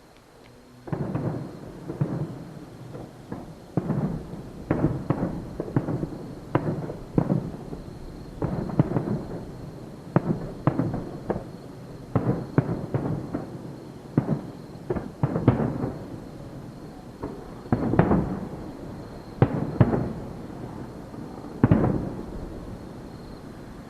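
Aerial fireworks shells bursting in a rapid, irregular barrage of sharp bangs, each followed by a rumbling echo. Two of the loudest bursts come near the end.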